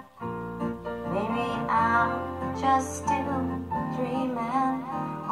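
Music from a slow song: sustained chords with a wavering lead melody that comes in about a second in.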